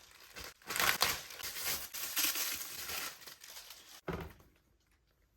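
Packaging being handled and opened, crinkling and rustling for about three seconds before going quiet.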